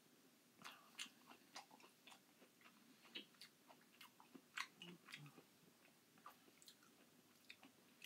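Quiet, wet mouth sounds of someone chewing a mouthful of crushed canned pineapple: irregular smacks and clicks of lips and tongue, several a second.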